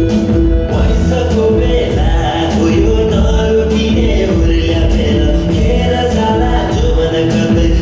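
Dance music with a steady beat and singing.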